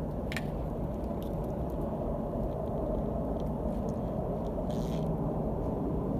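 Steady low rumbling drone from the sky, an unidentified hovering sound that holds level with a faint hum running through it.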